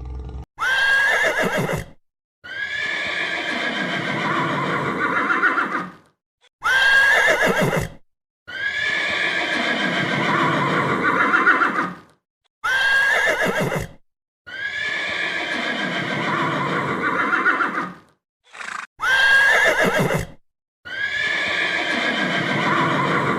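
A horse whinnying, the same call repeated four times. Each call is a short high squeal, then after a brief break a longer, shaky call lasting three to four seconds.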